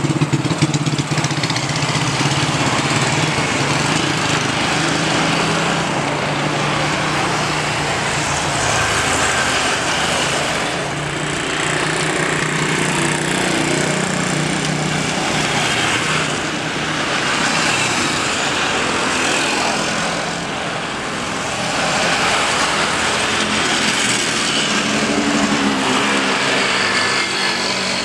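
Jet engine noise from an Airbus A320neo with CFM LEAP-1A engines as it touches down and rolls out on the runway. It is a steady rush with a faint whine, swelling and easing several times.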